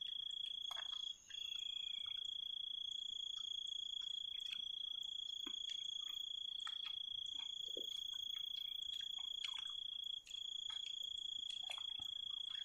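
Insects trilling in one continuous, high, steady note, which breaks off briefly twice, with faint scattered clicks.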